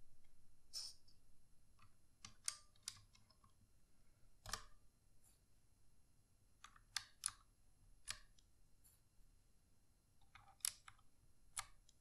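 White PBT pudding keycaps being pushed onto the clicky blue switches of a Redragon Kumara K552 mechanical keyboard: scattered faint sharp clicks, some in quick pairs, as each cap seats and its switch actuates.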